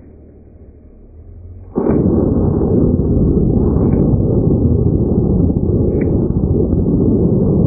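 High-power model rocket motors, heard slowed to one-eighth speed as a deep, steady rumble that starts suddenly about two seconds in, as the upper-stage motors light.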